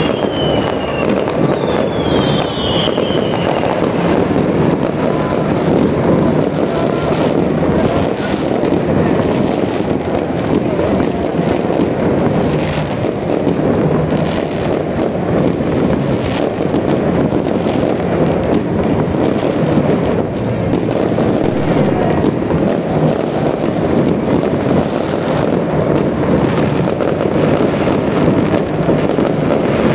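Fireworks going off without a break: many bangs and crackles overlapping into a steady din, with sharp cracks throughout. There are a few short falling whistles in the first three seconds.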